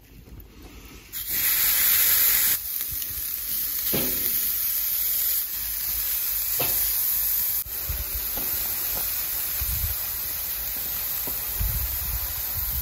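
Raw beef burger patties sizzling on a hot charcoal grill grate as they are laid down one after another. The sizzle starts suddenly about a second in, is loudest for a moment, then carries on steadily, with a few low thuds in the second half.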